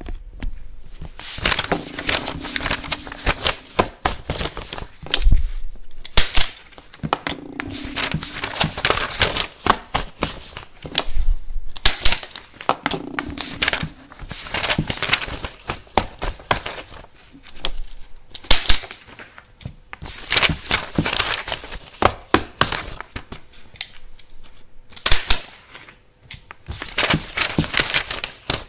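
Desk stapler stapling paper again and again: sharp snaps as the stapler closes, with paper rustling and crinkling between them.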